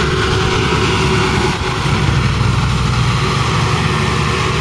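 Bobcat S250 skid-steer loader's diesel engine running steadily as the loader drives.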